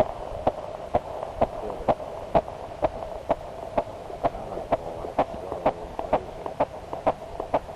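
Fetal heartbeat, about four months into pregnancy, picked up through a prenatal Doppler monitor's speaker: a fast, even pulse of about two beats a second over a steady electronic hum.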